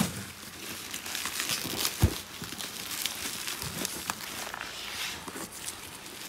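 Rustling, crinkling and small clicks from cordless drill sets and their wrapping being handled, with one dull thump about two seconds in.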